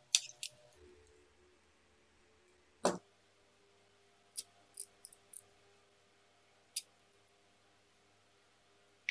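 Scattered small clicks and taps of plastic parts being handled: a screwdriver on a 3D-printed light mount, then a small plastic cable tie being threaded and pulled. There is one louder knock about three seconds in and a quick cluster of clicks a little later.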